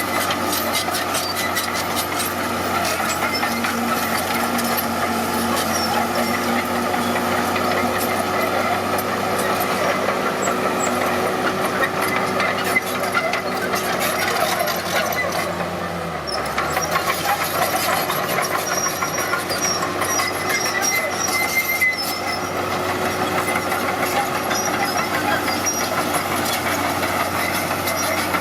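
Diesel engine of heavy earthmoving equipment, a bulldozer or road roller, running steadily at work with a clattering, squealing mechanical noise on top. Its note sags briefly a little past halfway, then comes back.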